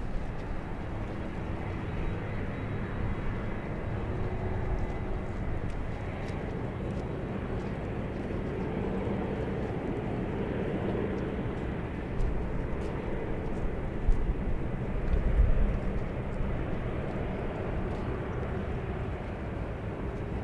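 Jet airliner engine noise: a steady, continuous roar, with a few louder low surges about two-thirds of the way in.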